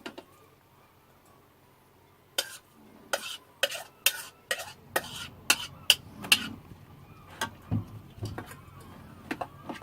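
A utensil stirring and clinking against a mixing bowl as fresh crab is folded into a crab-cake mixture. A run of sharp clinks and knocks starts a couple of seconds in, with softer ones near the end.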